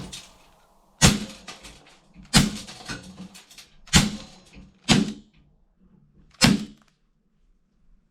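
Toy guns: five sharp cracks, each with a brief ringing tail, spaced irregularly about one to one and a half seconds apart.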